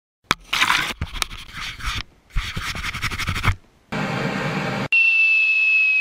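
Intro sound effects: a run of short noisy bursts with sharp clicks, then a steady high-pitched tone that begins about five seconds in.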